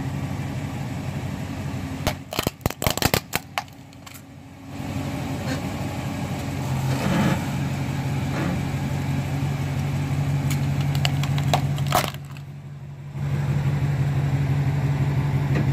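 Dodge pickup truck engine running slowly with a steady low hum, while its tyre rolls over and crushes a plastic calculator: a burst of sharp cracks and crunches about two seconds in, and a few lighter cracks later on.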